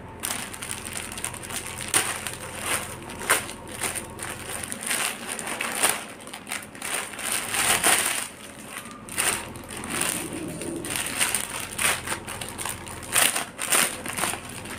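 Plastic courier mailer and clear plastic wrapping crinkling and rustling as a parcel is unpacked by hand, in a quick irregular run of sharp scrunches.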